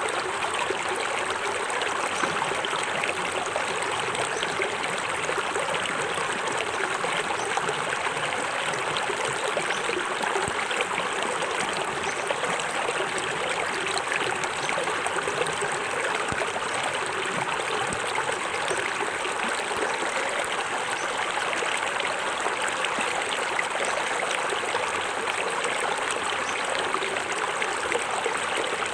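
Small forest waterfall: water splashing and running steadily over rocks into a stream, an even, unbroken rush.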